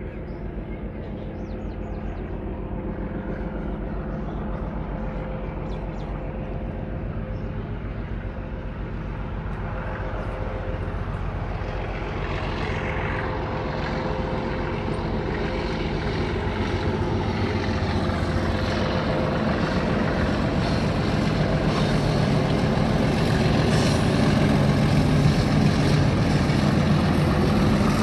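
Diesel locomotive hauling a passenger train, its engine making a steady low rumble that grows louder as the train approaches and draws level.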